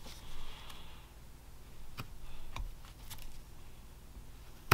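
Whittling knife cutting basswood: a soft scraping shave in the first second, then a few light clicks and ticks from the blade and the handled block, with a sharp click right at the end.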